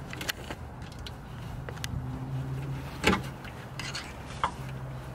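Screwdriver clicking and scraping against the old, cracked rear differential bushing of a Nissan 350Z as it is pried out of the subframe after holes were drilled around it. One sharper knock comes about three seconds in, over a steady low hum.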